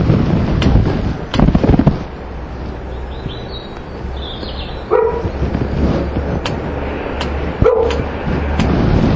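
Wind rumbling on the microphone, with scattered clicks and a dog barking briefly twice, about five and eight seconds in.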